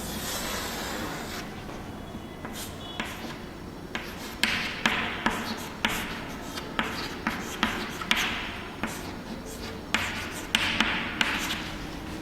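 Writing on a classroom board: a string of sharp taps, each followed by a short scratchy stroke, irregularly spaced and most frequent in the second half.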